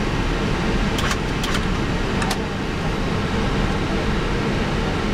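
Steady cockpit noise of an Airbus A319 with its engines running at idle and the air-conditioning blowing, with a faint steady hum. A few light clicks sound about a second in and again a little after two seconds.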